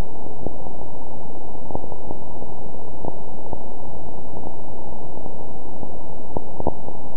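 A pulsar's radio signal converted to sound: a loud, steady rushing static with faint clicks scattered through it at uneven intervals.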